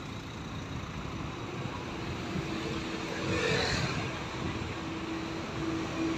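Street traffic noise beside a queue of stopped cars and a coach bus, engines idling, with a steady hum and a brief louder rush of noise about three and a half seconds in.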